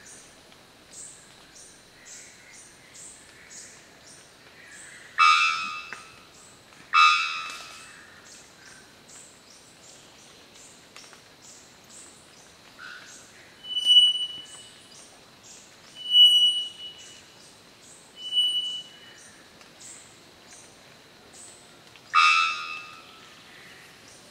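Male three-wattled bellbird calling. Two loud, abrupt notes come close together about five seconds in, then three high, pure whistles about two seconds apart, then one more loud, abrupt note near the end. Behind it, insects chirp in a fast, even pulse.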